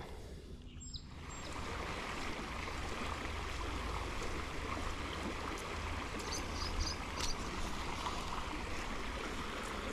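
Creek water running fast, a steady rush that swells up about a second in and then holds even.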